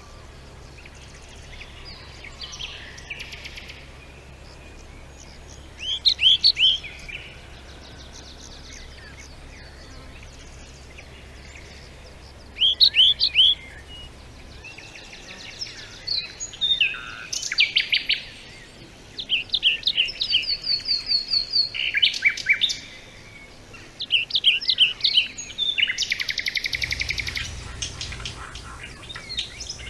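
Songbirds singing in short phrases of quick, high chirps and trills. The phrases are sparse at first, with two loud ones about six and thirteen seconds in, and become nearly continuous from about halfway through.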